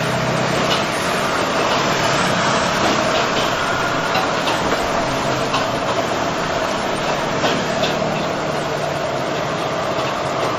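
Gas wok burner running on full flame with fire flaring into the wok, a steady rushing noise mixed with the sizzle of frying food. A few light clinks of the ladle against the wok.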